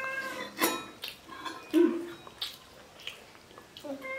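Metal spoons clinking against stainless steel bowls and brass plates at a table, a few separate strikes, some leaving a short ring. A brief low voice sound comes about two seconds in.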